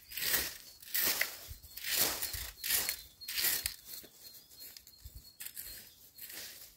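Garden rake scraping through dry fallen leaves, a rhythm of rustling swishes about twice a second that stops a little past halfway, leaving fainter rustles.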